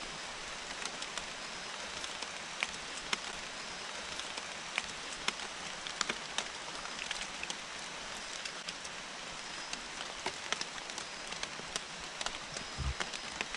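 Steady rain falling on rainforest foliage, with many single drops ticking sharply close by.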